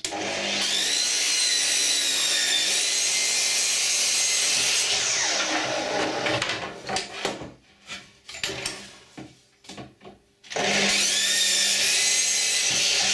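Makita mitre saw motor starting with a rising whine and cutting through a board, then spinning down about five seconds in. A few knocks follow as the board is moved, and the saw starts again about ten and a half seconds in for a second cut.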